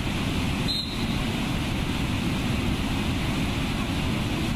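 Steady, loud rush of a flood-swollen waterfall pouring into whitewater, a deep, even noise without pauses.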